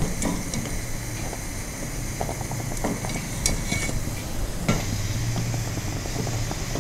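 Hot oil sizzling softly in a kadhai as fried peanuts are scooped out with a wire spider strainer, with a few light clicks and clinks of the metal strainer against the pan.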